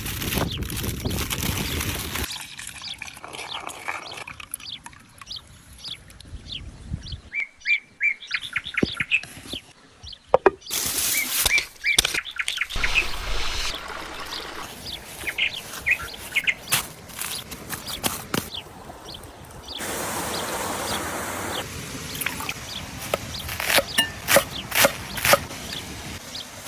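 Birds chirping in short high calls, over a run of abruptly changing sounds: stretches of steady hiss and many sharp clicks and knocks.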